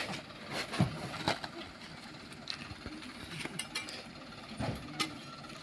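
Scattered faint knocks and thumps of oil palm fruit being tossed up into a loaded truck bed, with the sack being handled.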